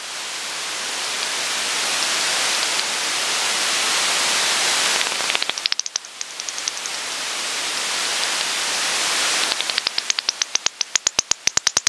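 Bat echolocation calls heard through a bat detector: a steady hiss from the detector, broken by a short train of rapid clicks just after halfway and a longer one near the end, where the clicks come faster and closer together.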